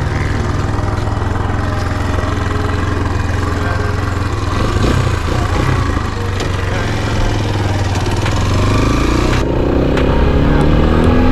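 Motoland XR 250 enduro motorcycle's single-cylinder four-stroke engine running at low, steady revs while the bike rolls off. Its pitch climbs over the last few seconds as the rider opens the throttle and accelerates.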